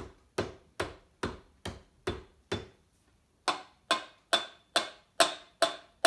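A pencil tapping on a small metal can in an even beat of about two and a half taps a second, each tap with a short metallic ring. There are two runs of about seven taps with a pause of about a second between them, the second run louder: a rhythm pattern being played back.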